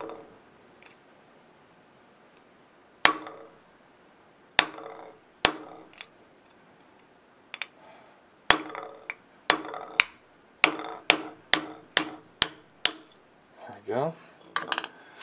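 Hammer striking a drill bit used as a makeshift punch, knocking the ground-off old rivets out of a tractor brake shoe. There are sharp metallic blows, each with a short ring: three spaced strikes, then a quicker run of about nine, roughly two a second, in the second half.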